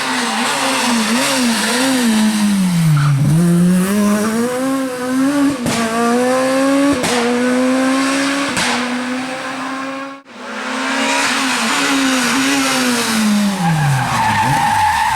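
Naturally aspirated four-cylinder rally car at full throttle on a stage: the engine note falls away about 3 s in, then climbs through the gears with a sharp crack at each upshift. After a cut about two-thirds of the way through, a rally car engine rises and then drops sharply in pitch as it comes off the throttle.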